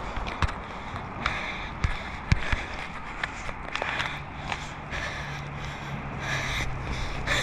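Footsteps scuffing along an asphalt driveway at a walking pace, with scattered sharp knocks of camera-handling noise. A steady low hum comes in about four seconds in.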